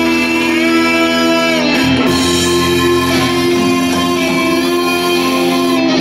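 Instrumental music played by an ensemble on handheld tablet devices: long sustained chords with a plucked, guitar-like part, stepping to a new chord about two seconds in.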